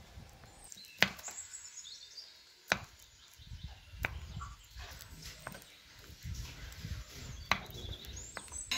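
Wooden spatula chopping soft butter in a ceramic bowl: soft squashing and scraping, with four sharp knocks where the spatula strikes the bowl.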